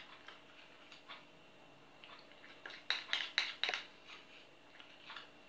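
A metal spoon clicking and scraping against a container as thick honey is spooned out, with a quick run of louder clicks about three seconds in.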